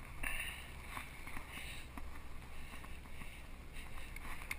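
Low wind rumble and rubbing on a body-worn camera's microphone, with a few faint knocks.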